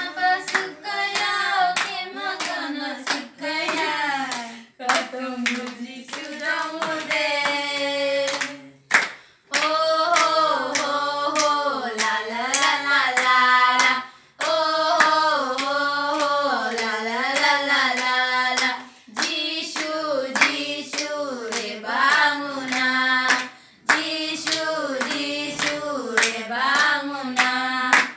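Young voices singing a song together, with hand claps keeping a steady beat. The song runs in phrases of about five seconds, with brief breaks between them.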